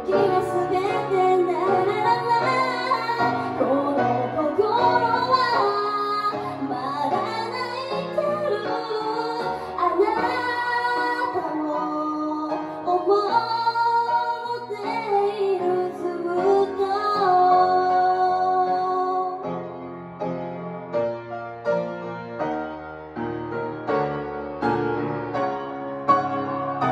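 A woman sings a slow ballad with live grand piano accompaniment. About two-thirds of the way through, her voice stops and the piano plays on alone.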